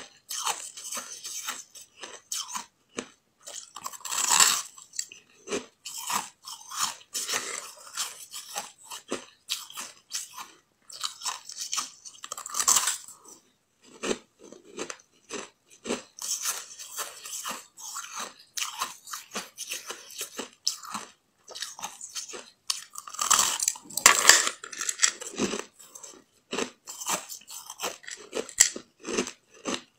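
Biting and chewing compacted ice that was frozen into bun shapes without added water: a dense run of short, crisp crunches. Bigger, louder bites come about four seconds in, around thirteen seconds, and in a cluster from about twenty-three to twenty-five seconds.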